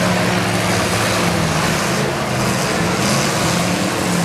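Several demolition derby cars' engines running and revving together, a loud, steady mix of engines.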